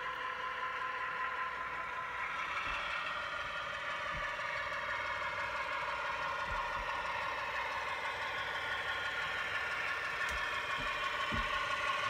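HO-scale model diesel locomotive running around a curve, its sound decoder playing a steady diesel engine drone through a small speaker, a little louder near the end as it comes closer. A few soft thumps come in along the way.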